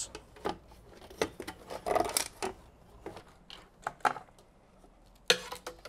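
Hands handling a circuit board and ribbon cables inside a metal computer chassis: scattered light clicks and rattles, with one louder knock near the end.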